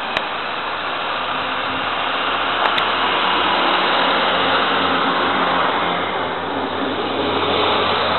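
DB class 641 diesel railcar pulling out of the station and passing close by: its diesel engine runs with a steady low drone under a broad rolling noise that grows louder as it goes past. A few sharp clicks come at the start and about two and a half seconds in.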